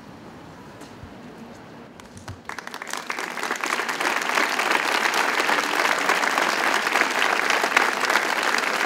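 A large crowd standing quiet outdoors, then, about two and a half seconds in, breaking into applause that swells within a second or so and carries on steadily: the clapping that closes a silent vigil.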